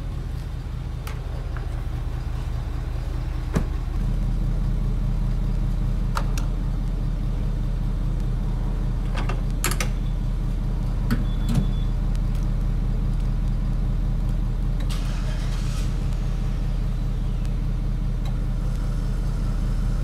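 Diesel fuel being pumped through a high-flow pump nozzle into a pickup's tank: a steady low drone that steps up about four seconds in, with a few clicks and knocks from the nozzle and filler.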